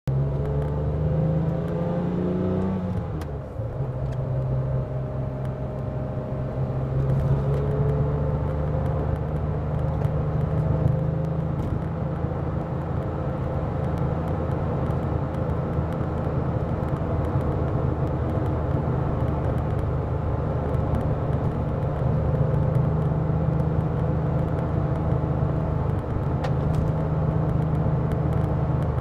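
Porsche 996 GT2's twin-turbo flat-six heard from inside the cabin, over road and tyre noise. Its pitch rises for the first few seconds, then drops with a brief dip in level about three seconds in as it shifts up, and it then cruises steadily.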